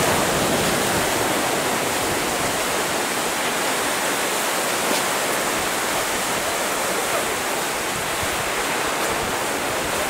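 Sea surf breaking and washing over rocks, a steady hiss of water.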